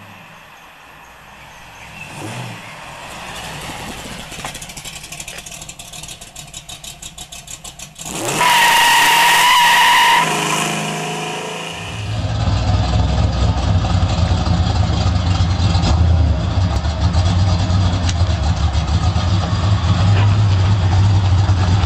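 Cammed LT1 V8 in a Pontiac Firebird, breathing through long-tube headers, an X-pipe and Flowtech Warlock racing mufflers with the cut-out closed. The car drives past and is loudest for a couple of seconds about a third of the way in. After a cut it idles close by with a deep, uneven pulsing rumble.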